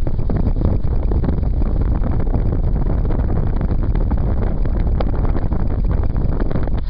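Wind buffeting a phone microphone: a loud, steady rumble that flutters rapidly, with a brief high squeak about five seconds in.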